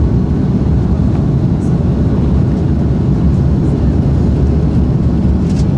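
Cabin noise inside an Airbus A330-200 climbing after takeoff, heard at a window seat over the wing: a steady, deep rush of jet engines and airflow.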